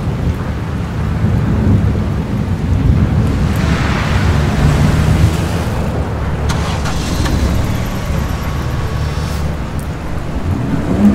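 Cartoon sound effects: a monster truck's engine running with a deep rumble, with rain and thunder.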